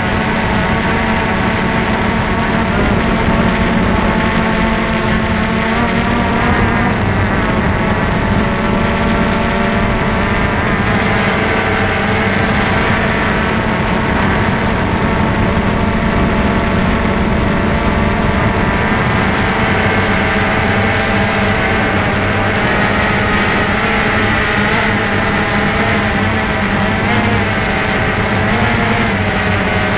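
DJI Phantom 2 quadcopter's four electric motors and propellers buzzing steadily in flight, heard close up from the camera mounted on the drone; the pitch wavers slightly as it manoeuvres.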